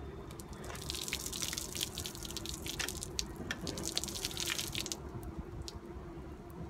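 Hot water poured from an electric kettle splashing and running over a painted motorbike fuel tank, the splashing stopping about five seconds in.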